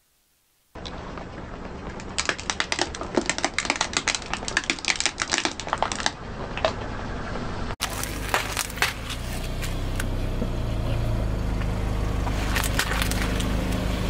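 Car tyre rolling over small plastic toy cars, a rapid run of sharp cracks and snaps as the plastic breaks, over the car's low engine hum. About eight seconds in it changes to the tyre crushing a bag of M&M's, with scattered crunches of the candy shells over the engine.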